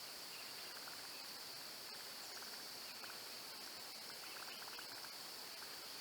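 Evening insect chorus, crickets and the like: a steady high-pitched hum with faint short trills underneath.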